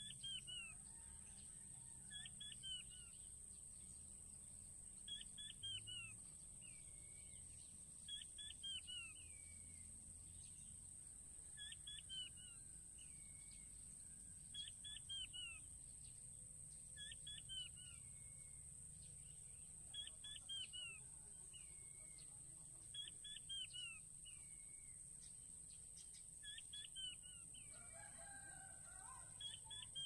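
Quail calling, most likely a king quail: a quick run of about three falling whistles, sometimes with a lower trailing note, repeated every two and a half to three seconds. It is faint.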